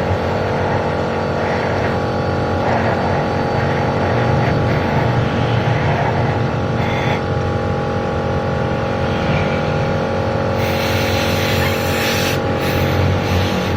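A machine runs steadily with a constant hum. About ten and a half seconds in, a loud rushing hiss of air starts and carries on, with short breaks near the end.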